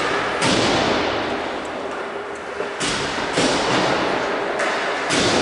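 Ice hockey rink ambience: a steady noisy rumble broken by several sudden hissing bursts that each fade over about a second, the first about half a second in.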